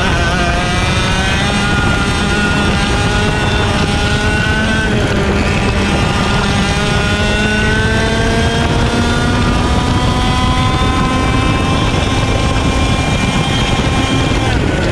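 IAME X30 125cc two-stroke kart engine at full racing revs, heard onboard over heavy rushing noise. Its pitch climbs steadily along the straights and drops briefly about five seconds in and again near the end, as the throttle is lifted for corners.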